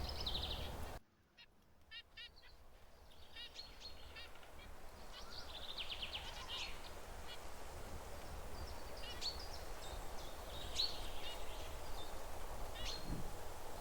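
Zebra finches calling: many short, nasal beeps and chirps, some in quick runs, with a brief drop-out about a second in before the calls pick up again.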